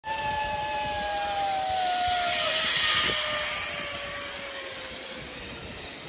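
An aircraft passing by: a slowly falling whine under a rush of noise that swells to its loudest about three seconds in and then fades away.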